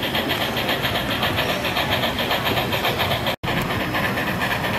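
HO-scale model steam locomotive's onboard sound chuffing at a fast, even beat as it runs, with room noise underneath. The sound cuts out for an instant about two-thirds of the way through.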